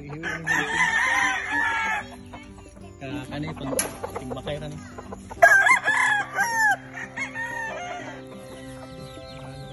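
Game roosters crowing twice: a crow of about a second and a half beginning about half a second in, and a louder crow starting around five and a half seconds in.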